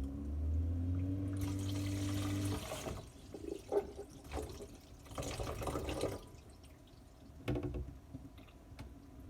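Water running in two short spells, over a low steady hum.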